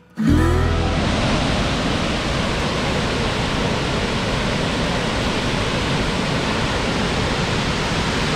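A tall waterfall rushing steadily as it plunges into its pool, a dense even roar of falling water that cuts in suddenly just after the start.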